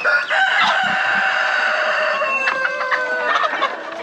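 A rooster crowing: one long crow of about three seconds, its pitch sagging toward the end.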